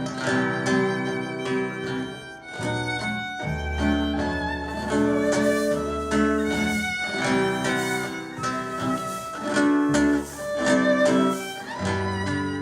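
Instrumental string music: a bowed violin melody over plucked guitar.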